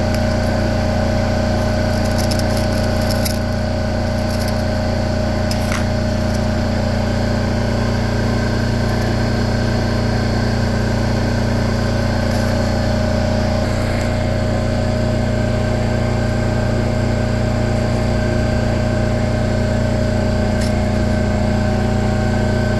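Shop machinery running: a loud, steady machine hum with several fixed tones.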